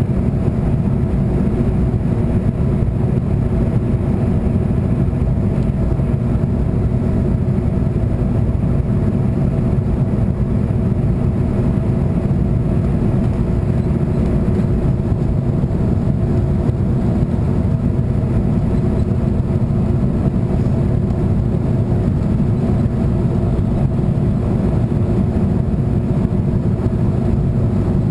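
Steady drone of an airliner's cabin in flight: engine and airflow noise, deep and unchanging, with a faint steady hum above it.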